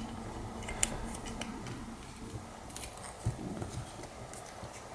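Faint scattered clicks and taps of a 3D-printed plastic canopy being handled and pressed onto a small FPV quadcopter's frame, with a slightly louder knock about three seconds in.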